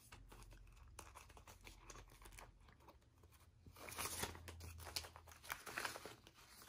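Faint rustling and crinkling of paper banknotes and a clear plastic binder pocket being handled, louder and busier from about four seconds in as the bills are picked up and fanned out.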